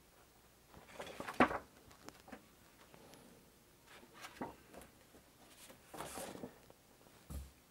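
Scattered paper rustles and light handling knocks as a printed LP insert and record jacket are turned and moved by hand, the loudest rustle about one and a half seconds in, with a soft low bump near the end.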